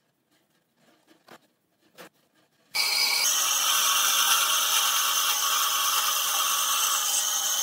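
Bandsaw cutting lengthwise through a thick wooden board: a loud, steady sawing sound that starts suddenly about three seconds in, after a few faint ticks.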